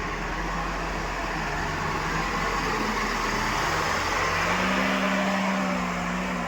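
Heavy diesel engine of a backhoe loader or tractor running steadily, rising in pitch and getting a little louder about four and a half seconds in, as when the machine takes on load or is revved.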